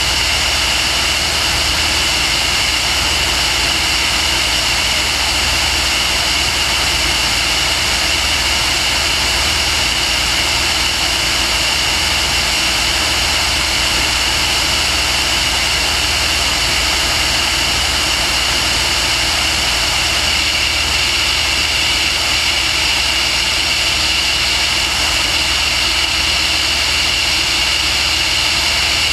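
Steady engine and propeller noise of the aircraft carrying the camera, mixed with wind, holding an even high-pitched drone with a low rumble beneath and no change in pitch.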